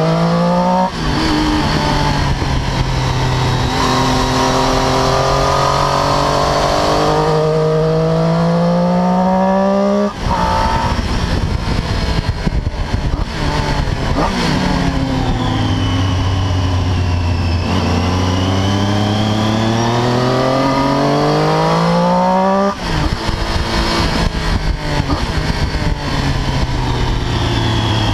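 Triumph Daytona 675's three-cylinder engine under hard acceleration on track, its pitch climbing, with an upshift about a second in. The engine shuts off sharply about ten seconds in and falls in pitch through braking and downshifts, pulls hard again from about sixteen seconds, and shuts off again about five seconds before the end.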